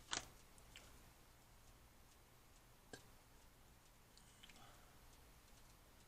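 Near silence with faint, evenly spaced ticking, broken by a sharp tap just after the start and a lighter one about three seconds in, as a paintbrush is handled on a painting desk.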